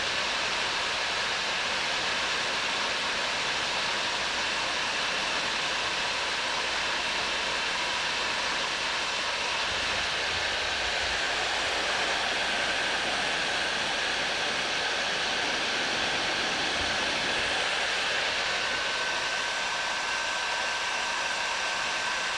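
Bauer heat gun running steadily on its highest setting: a constant rush of blown air with a faint high whine. It is heating a copper pipe joint for soldering, not yet hot enough to melt the solder.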